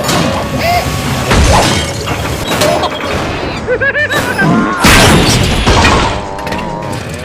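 A dense mix of cartoon sound effects and crash sounds over music: impacts and shattering glass, with wavering, sliding pitched tones in between. The loudest crash comes about five seconds in.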